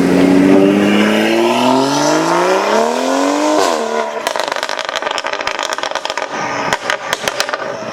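BMW M235i's turbocharged N55 straight-six with a catless iPE exhaust, accelerating hard with its note climbing steadily for about three and a half seconds. It then lifts off and crackles, firing a rapid run of sharp exhaust pops and bangs on the overrun.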